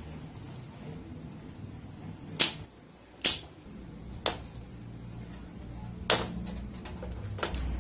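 High-voltage arcing from a Sanyo CRT television's flyback transformer: five sharp snapping cracks at irregular intervals over a steady low hum from the running set.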